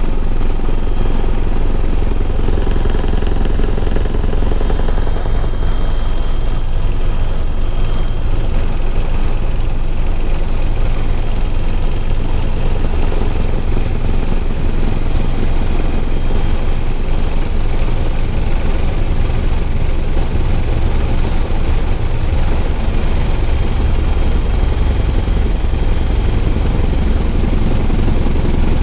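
Bell 412 helicopter in flight: a loud, steady drone from its twin turbine engines and rotor, with a faint high whine on top.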